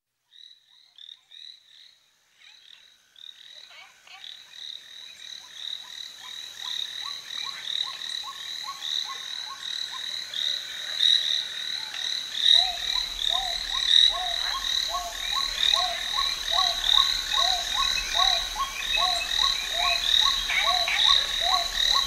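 A chorus of frogs calling: rapid high chirping calls at first, joined about four seconds in by lower, evenly repeated croaks, the whole chorus swelling steadily louder.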